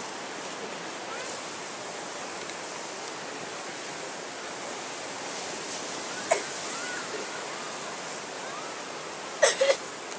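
Steady hiss of ocean surf breaking on the beach, with a single sharp click about six seconds in and a quick run of three loud knocks near the end.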